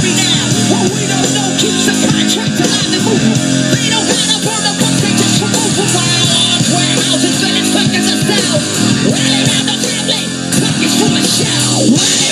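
A loud song with singing over a repeating bass line, played through a speaker at full volume and recorded by a smartphone microphone about a foot away.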